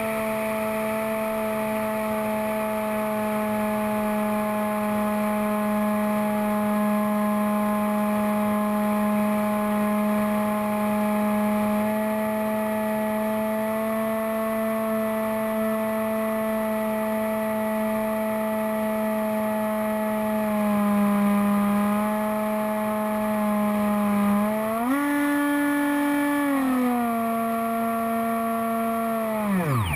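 Electric motor and propeller of a Bixler foam RC plane running at steady cruise throttle, a constant whine. Near the end the pitch rises for about two seconds as the throttle is pushed up, then settles back, and at the very end it falls away sharply as the throttle is cut.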